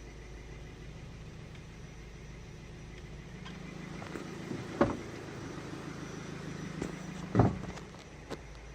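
Ford Focus II 1.6-litre 100 hp engine running, heard from inside the cabin, with the engine knock (стук) the owner is recording. Two louder thumps come about five and seven and a half seconds in.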